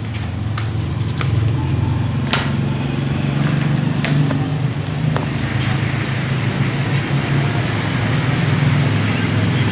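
A steady low mechanical hum running throughout, with a few sharp clicks or taps in the first half.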